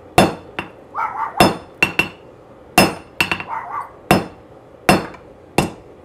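Hand hammer striking red-hot round mild steel held over the edge of a Nimba Titan anvil, making a set down. Sharp, ringing metallic blows come roughly once a second, with lighter rebound taps on the anvil between them.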